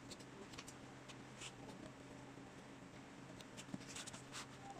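Faint snips and clicks of steel scissors trimming the thin tips of COF flex film strips on an LCD panel edge. A few come early on and a quick cluster about four seconds in, over a low steady hum.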